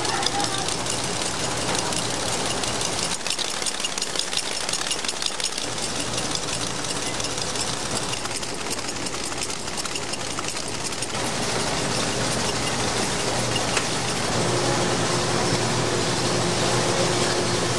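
Candy factory machinery running with a rapid mechanical clatter over a steady hum; a higher steady tone comes in near the end.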